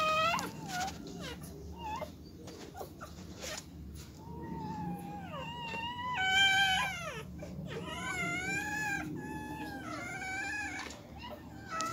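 Newborn Siberian Husky puppies squealing and whimpering while nursing: high, thin cries that rise and then fall, with a run of them about one a second in the second half.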